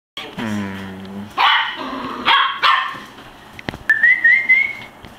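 Shetland sheepdogs barking: a few sharp, loud barks in the first half. A low steady tone comes before them, and a thin high tone rising in small steps follows near the end.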